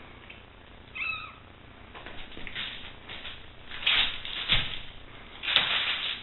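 A four-week-old kitten gives one short, high mew about a second in. After that come several bursts of rustling and scuffling, loudest about four seconds in and near the end, with a dull bump in between.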